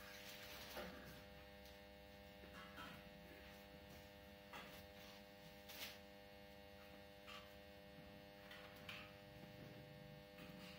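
Near silence: a faint, steady electrical hum, with a few soft, brief rustles of cloth as a cotton garment is handled and spread out on a table.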